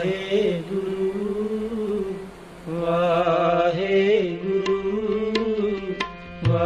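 Devotional Sikh kirtan music: a voice holding long, wavering notes over a steady drone. Tabla strokes join about halfway through.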